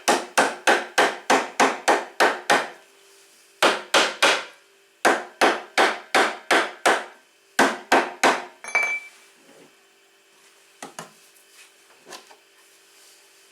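Hammer blows in quick runs, about four a second, in four bursts with short pauses, stopping about nine seconds in; a few light knocks follow.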